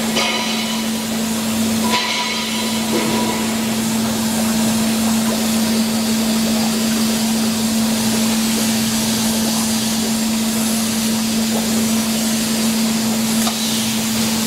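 Pulp-moulding production-line machinery running steadily: a constant hum under an even hiss, with a couple of faint clicks.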